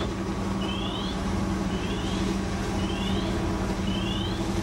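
An engine runs steadily with a low hum. A short, high, rising chirp repeats about once a second over it, five times.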